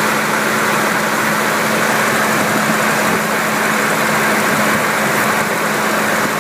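2000 Ford Ranger's engine idling steadily at a high idle, which the owner suspects comes from a vacuum leak. The idle speed holds steady without dipping or rising.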